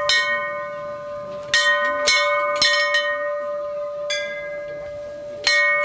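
Hanging metal temple bell struck over and over, about six clangs at uneven intervals, each one ringing on into the next.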